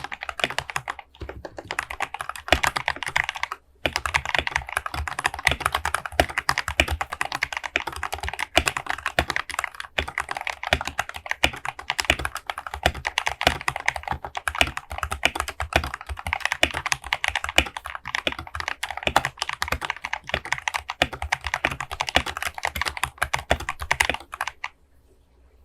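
Fast, continuous typing on a Rexus Daxa M71 Pro mechanical keyboard with Gateron Red linear switches, modded with lube, switch films, a case dampener and the band-aid mod. There is a brief pause about four seconds in, and the typing stops shortly before the end.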